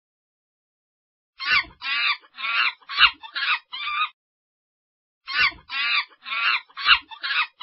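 Monkey calls: a series of about six short, shrill calls in quick succession, then after a pause of about a second the same kind of series again.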